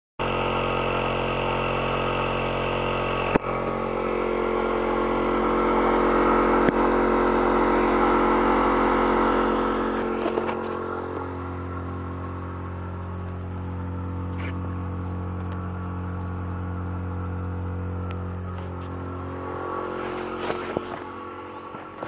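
Onboard air compressor for a truck's air horn running steadily, with a couple of sharp clicks in the first seven seconds; about ten seconds in it drops to a lower, steadier hum.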